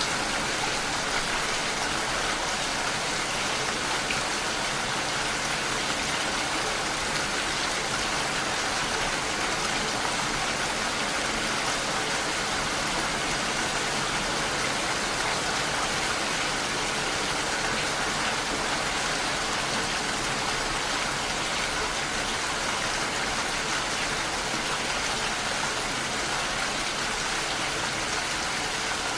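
Steady rain falling, a dense even hiss without separate drops standing out.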